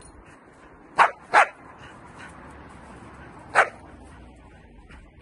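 Dutch Shepherd puppy barking three times: two quick barks about a second in and another about three and a half seconds in. These are aggressive, alert barks on command at a moving helper during protection training.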